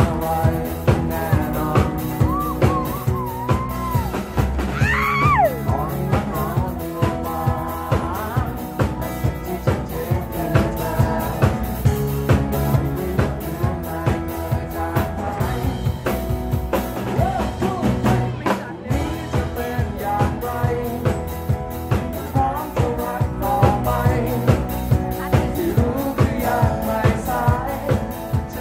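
Live band playing a rock song: a singer over acoustic guitars and a drum kit keeping a steady beat of about two strokes a second, with a brief break about two-thirds of the way through.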